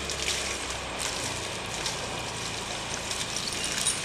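Water from a hose spraying and splashing steadily onto wet, muddy ground, over a low steady hum.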